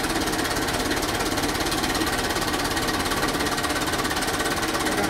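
JCB backhoe loader's diesel engine running steadily close by, a fast, even clatter.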